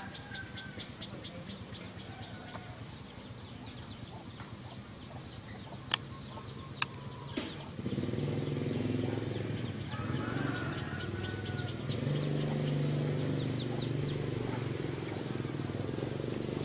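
Outdoor field ambience: a fast, even train of high ticks, like a calling insect, and three sharp clicks a little past the middle. About halfway through, a low, steady engine drone comes in and becomes the loudest sound.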